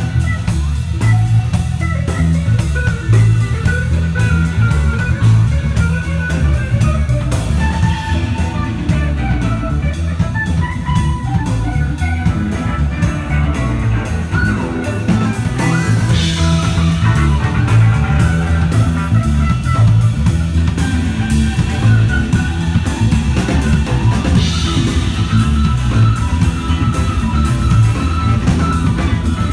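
Rock band playing live: guitar over bass and a drum kit in a steady groove, with bright cymbal crashes about halfway through and again near the end.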